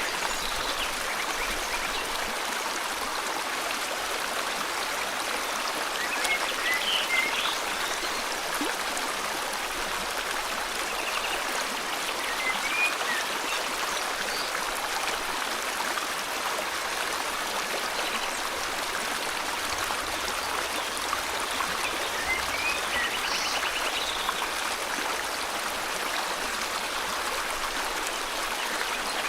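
River water flowing steadily, with a few short bird chirps scattered over it, around six, twelve and twenty-three seconds in.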